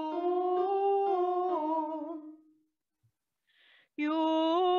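A woman singing a vocal warm-up exercise on a closed 'oo' vowel, stepping up a few notes and back down. About three and a half seconds in there is a short breath, and the next sung phrase starts near the end.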